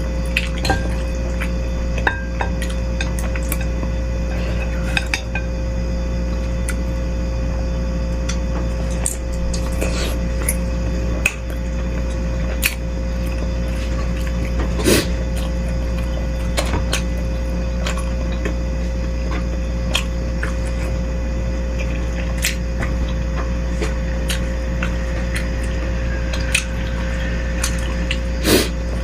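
Spoon clinking now and then against a bowl of bakso soup during eating, over a steady low hum with a constant mid-pitched tone.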